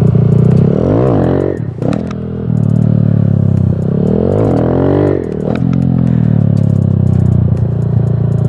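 Motorcycle engine running under load and revved hard twice, the pitch rising steeply and then falling away each time. These are throttle blips with a clutch pop to lift the front wheel, the rear brake bringing it back down.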